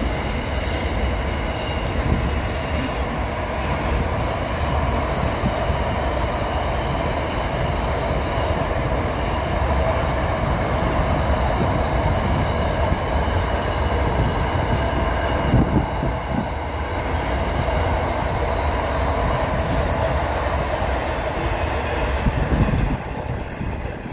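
A long freight train of double-stacked container wagons rolling past: a steady rumble of wheels on the rails, with short high-pitched wheel squeals now and then.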